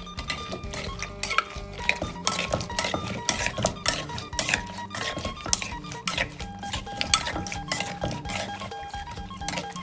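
Kitchen utensils clinking and knocking in a mortar in quick, irregular strokes as som tam (green papaya salad) is mixed and pounded, over background acoustic guitar music.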